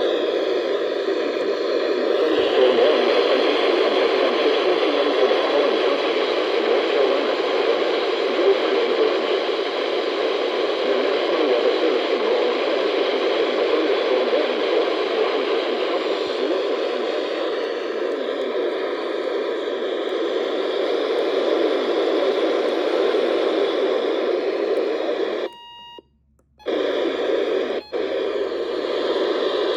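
Radio receiver hissing with steady static, tuned to an empty or weak channel with no voice coming through. Near the end it cuts out for about a second, then comes back, with another short break right after.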